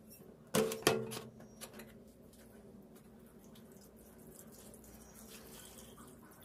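Rusty iron cleaver set down in a plastic tub with two sharp clanks, about half a second apart. A thin stream of liquid is then poured over it, splashing faintly into the tub.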